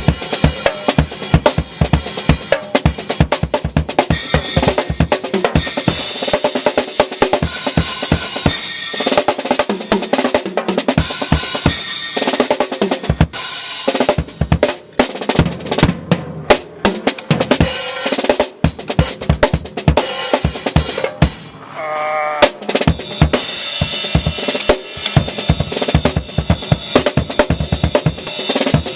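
Acoustic drum kit played hard and fast: rapid bass drum strokes under snare hits and a steady wash of cymbals, easing off briefly about two-thirds of the way through before driving on.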